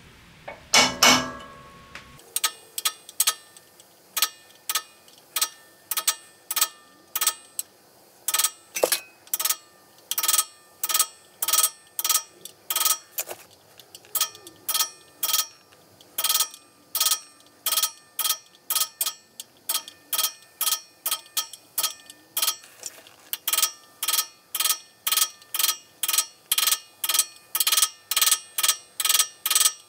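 Hammer blows on a metal punch against a flathead Briggs & Stratton engine's cylinder block, staking notches around a loose valve seat so that it stays in: a long run of sharp metallic taps, about two a second and slightly faster near the end, each ringing briefly. A louder knock comes about a second in.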